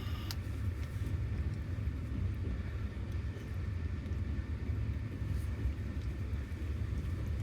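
Steady low rumble of a long-distance passenger train running, heard from inside an open-plan sleeper carriage.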